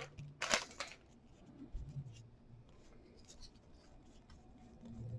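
Faint rustling and sliding of trading cards being handled and flipped through by hand, with two brief louder rustles in the first second.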